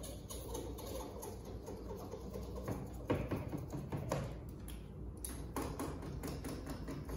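Hand-held pad or scraper being rubbed and scraped over a car door's window glass to clean it before window tint goes on, with a run of short strokes and two sharper scrapes about three and four seconds in.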